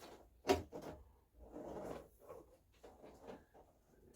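Handling noise from a length of plastic curtain track being worked on a model railway baseboard: a sharp knock about half a second in, rubbing and scraping, then another knock at the end.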